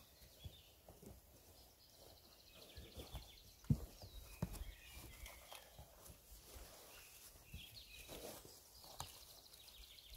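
Quiet handling sounds as a man pulls on rubber boots: rustling and soft knocks, with two sharper thumps about four seconds in. Faint high chirping comes and goes in the background.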